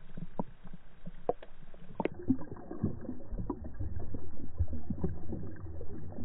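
Muffled water movement heard through a camera held underwater: scattered clicks and knocks with a low rumbling slosh that grows louder about three seconds in.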